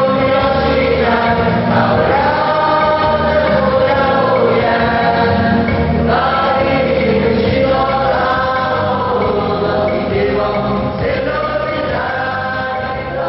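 Youth choir of young men's and women's voices singing a hymn together, holding long notes, growing slightly softer toward the end.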